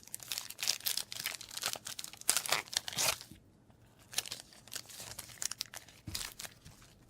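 Foil wrapper of a Yu-Gi-Oh booster pack crinkling and being torn open by hand, in two bouts with a short pause about three and a half seconds in.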